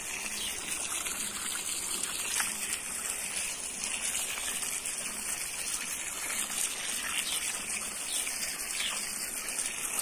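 Water from a garden hose pouring steadily into a steel basin full of apricots, splashing over the fruit as it is rinsed.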